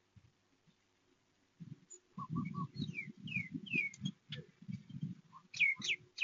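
Birds calling: after a quiet start, a run of low, rapid pulsing calls begins about a second and a half in, with short downward-sliding chirps above it and two louder chirps near the end.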